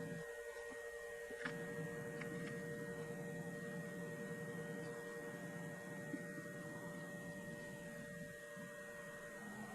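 A steady electrical hum of several fixed pitches, with a few faint clicks early on.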